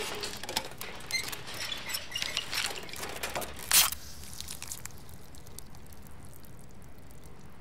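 Clicking and rattling of a puppet rig of metal rods as the seated dummies' arms are jerked about. Just before four seconds in comes one short, loud spray from a soda can, and then only quiet room tone.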